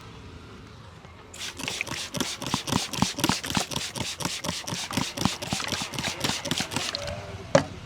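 A barber's hands rapidly tapping and slapping a customer's head in an Indian head massage, an even run of about six strokes a second that starts about a second in and stops near the end. One sharp, loud crack follows.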